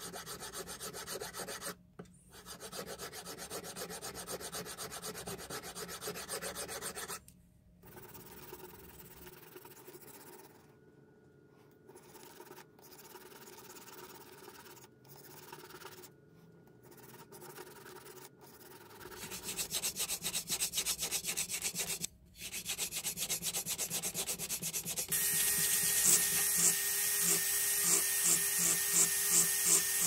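Hand file rasping in repeated strokes over a silver pen part, in runs with short breaks, quieter for a while, then louder again. About 25 s in, a small rotary handpiece starts up with a steady high whine and a pulsing grind as it works the pencil.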